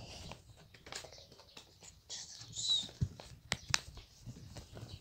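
Sheet of paper being folded and creased by hand: soft rustling with scattered small taps, a brief louder rustle about two and a half seconds in, and a few sharp clicks between three and four seconds in.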